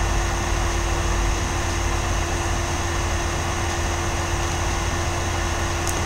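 Rooftop HVAC plant running: a steady rushing air noise with low rumble and one constant humming tone.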